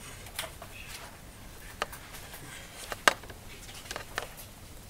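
Quiet room tone broken by a few sharp small clicks and knocks, the loudest about three seconds in.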